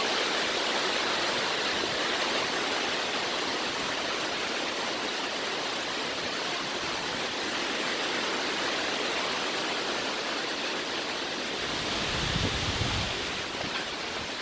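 Dunn's River Falls cascading: a steady rushing of water, with a brief low rumble near the end.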